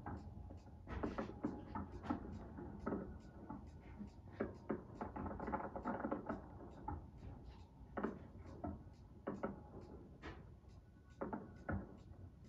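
Fireworks shells bursting, played back through a television's speaker and heard in the room: a run of irregular sharp pops and bangs, sometimes several close together.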